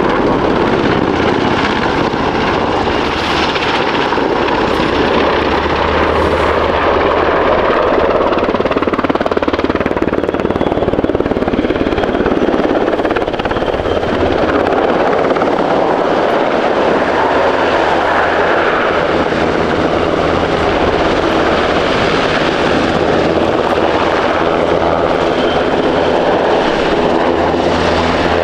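NH90 helicopter in flight: loud, steady rotor and twin RTM322 turboshaft noise as it flies its display. A humming tone comes in near the end as it hovers close.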